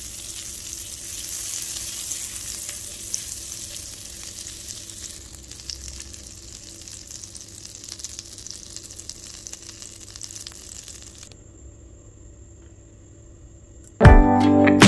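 Butter sizzling and bubbling as it melts in a frying pan over a low flame; the sizzle fades and drops out a few seconds before the end. Acoustic guitar music comes in loudly near the end.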